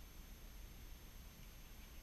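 Near silence: a steady low hum and hiss, with a few faint small clicks near the end as small metal parts are handled.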